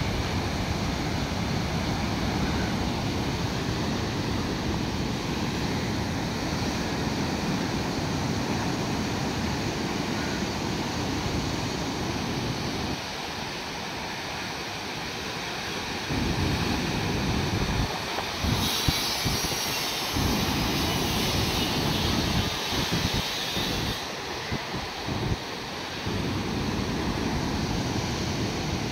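Heavy surf from a rough sea: large waves breaking and rushing as white water over a rocky shore, a steady hissing wash with a brighter surge about two-thirds of the way through. Wind rumbles on the microphone under it, dropping away at times.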